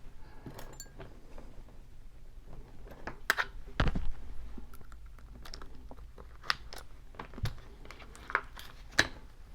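Master Lock M187XKAD four-pin padlock being raked open with a worm rake and tension wrench through its plastic blister pack: scattered sharp clicks and scrapes of the picks in the keyway, the loudest about three to four seconds in.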